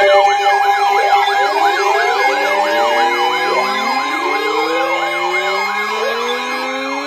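Several sirens sounding together: an electronic yelp sweeping up and down about two to three times a second over steady tones, while lower siren wails wind slowly up in pitch one after another.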